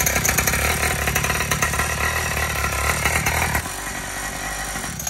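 Two-stroke petrol engine of a large-scale RC monster truck running just after a cold start on choke, with the choke now off. It runs hard at first, then drops to a quieter, lower running level about three and a half seconds in.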